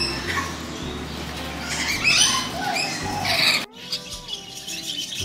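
Macaws squawking in harsh, repeated calls, which cut off abruptly about three and a half seconds in; quieter held and gliding tones follow.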